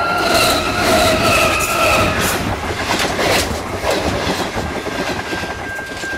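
Diesel-electric locomotive and passenger train passing directly over a microphone set between the rails: heavy rumble with the wheels clattering over the rail, and a high steady ringing that fades away about two seconds in.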